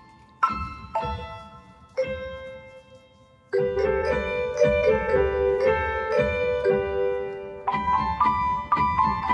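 Background music of struck keyboard notes: a few single notes spaced out at first, then a busier run of notes from about three and a half seconds in.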